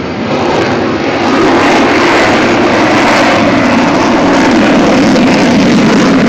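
F/A-18 Hornet jet passing overhead: loud jet engine noise that swells about a second in and then holds steady.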